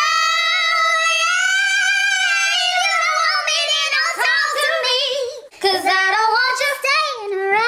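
A woman singing: she swoops up into one long high held note with vibrato, then after a short break about five and a half seconds in goes into a run of quick, ornamented notes. Only the voice is heard.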